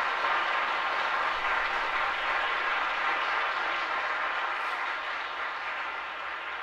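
A steady rushing noise that slowly fades out towards the end.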